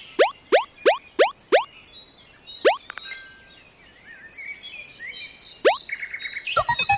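A quick run of six sharp falling zaps in about a second and a half, then two more single zaps, with faint bird-like twittering between them. The new music starts near the end.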